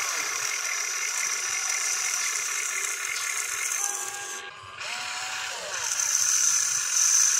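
Radio-controlled excavator's small electric motors whining steadily as it works its boom, with a thin high-pitched whine over it. The sound breaks off briefly about four and a half seconds in, then comes back louder and higher.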